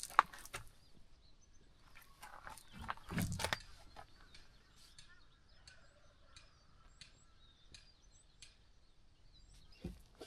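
Small birds chirping now and then, short high calls over a quiet background, with a few clicks and knocks in the first few seconds.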